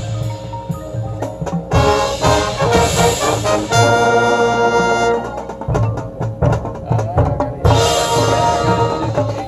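High school marching band playing brass and percussion: a held brass chord about four seconds in, then a stretch carried mostly by the drums before the full brass comes back in near the end.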